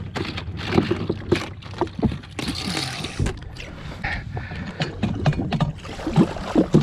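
Repeated knocks and thuds of handling on a jet ski with a freshly landed snapper, with a short watery rush about two and a half seconds in, over a low rumble of wind and water against the hull.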